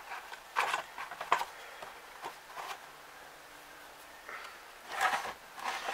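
A few light clicks and rustles of plastic as the butane soldering iron is handled and set back into its moulded plastic packaging tray.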